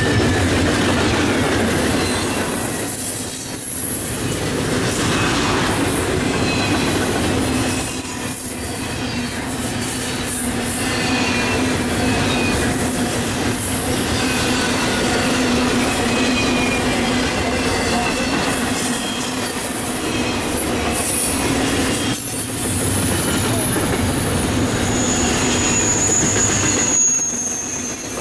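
Freight train of highway trailers rolling past at close range: a loud, steady rumble of wheels on rail, with thin high wheel squeals now and then and a clearer one near the end.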